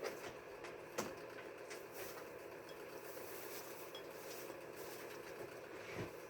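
A few sharp knocks and clatters of objects being handled during cleaning, the loudest about a second in and another near the end, over a steady low hum.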